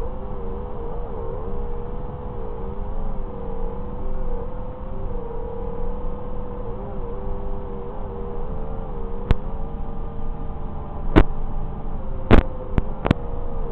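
FPV quadcopter's brushless motors and propellers whining, the pitch wavering up and down with throttle, over a steady low rumble. Several sharp clicks come in the last few seconds.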